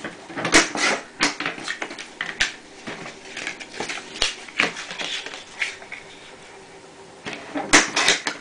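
A sliding paper trimmer cutting paper: its blade carriage pushed along the rail, with the paper shifted and squared up in between, heard as a series of short scrapes and clicks.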